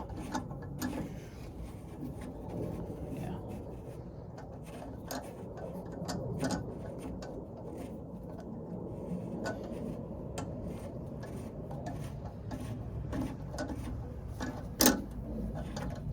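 Metal scraping and small clicks of a tap or bolt being turned by hand in a truck bed's threaded mounting hole, with one sharp click near the end.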